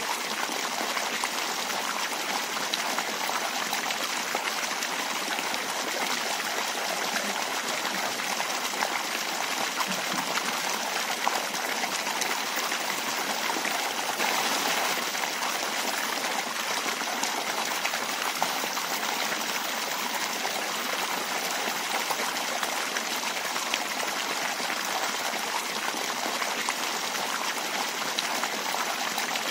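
Water jetting from an inflow pipe and splashing steadily into a trout pond.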